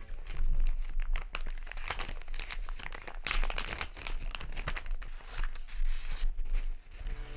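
Clear plastic zip bag and tissue paper crinkling and rustling as hands open and handle them, an irregular run of crackles.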